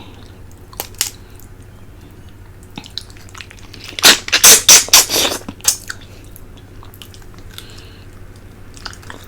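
Sucking and slurping on a cooked fish head: a couple of sharp wet clicks near the start, then a loud quick run of about six slurps about four seconds in, with faint smacking after.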